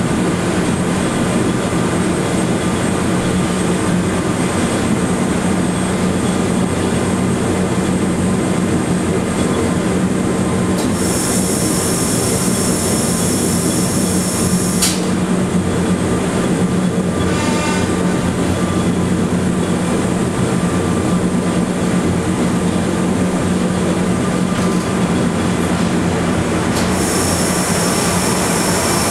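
Steady running noise inside an electric rack-railway railcar climbing the Monte Generoso line: a constant low hum from the drive and rack gearing over the rumble of the wheels. A high-pitched squeal of the wheels comes in for a few seconds about eleven seconds in, and again near the end.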